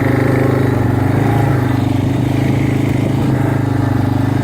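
An engine running steadily at an even speed, a loud low drone with a fine rapid pulse.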